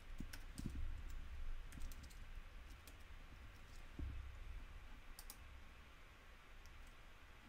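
Faint computer keyboard typing: scattered key clicks, thinning out after about three seconds, with a short flurry again around five seconds.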